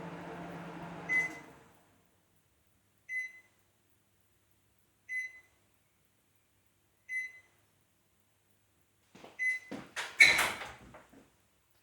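Microwave oven finishing: its running hum stops with a beep, then the same short beep repeats about every two seconds as a reminder. Near the end comes a burst of clicks and a clunk, as of the door being opened.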